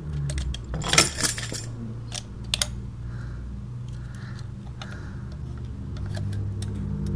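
Metal keys clinking and scraping in a plastic wall-outlet box as a tiny hidden camera wedged inside is worked loose. There is a dense rattle about a second in, then scattered small clicks, over a low steady hum.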